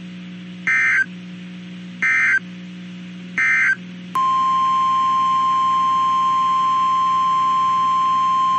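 Three short screeching digital data bursts of the weather-alert SAME code, the brief end-of-message signal. About four seconds in, the steady single-pitch 1050 Hz NOAA Weather Radio warning alarm tone starts and holds.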